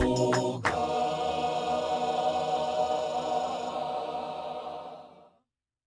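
Church choir singing, with a few sharp hand claps in the first second, ending on one long held chord that fades out about five seconds in.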